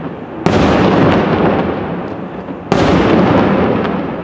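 Two firework shells bursting, one about half a second in and one near three seconds, each a sharp bang followed by a long echo that slowly dies away.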